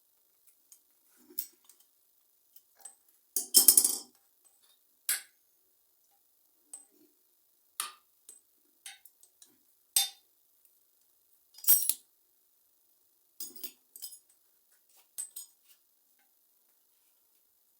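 Irregular sharp metallic clinks and knocks of plumbing tools and tap fittings as a bathroom tap is worked loose, a dozen or so spread out with quiet between them. The loudest is a short rattling clatter about three and a half seconds in, with sharp clinks around ten and twelve seconds.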